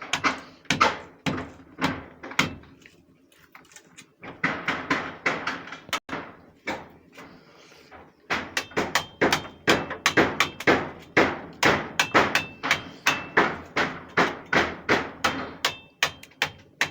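Repeated hammer blows of demolition work on a house, a few scattered strikes and then a steady run of about two to three blows a second in the second half, some with a short metallic ring.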